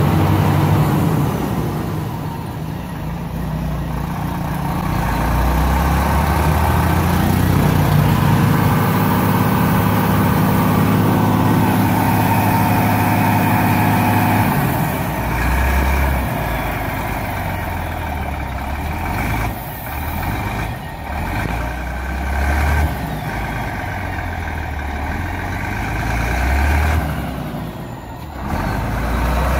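Volvo FH 540 truck's diesel engine running under load as the loaded truck creeps slowly through mud. The engine note shifts about halfway through and then rises and falls repeatedly.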